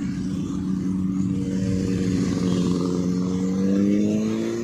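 Motorcycle engine accelerating, its note rising steadily in pitch and getting louder over a few seconds, with road rumble underneath.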